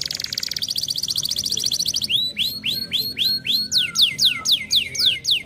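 Canary singing: a fast rolling trill for about two seconds, then a run of downward-sliding whistled notes, the last few steeper and starting higher.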